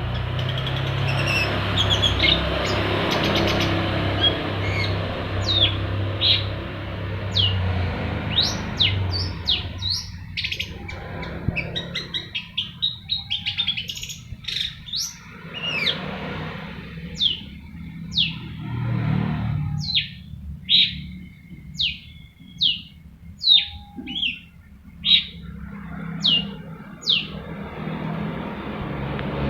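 Long-tailed shrike (pentet) singing: a fast run of short, sharp, mostly downward-sliding whistled notes, denser and louder in the second half. A low steady rumble runs under the first several seconds.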